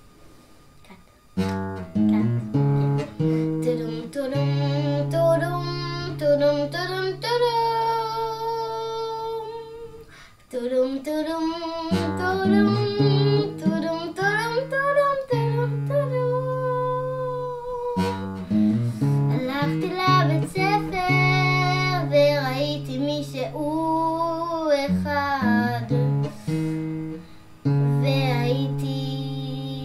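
A young girl singing a melody to an acoustic guitar accompaniment. The music starts about a second and a half in, with a few short breaks between phrases.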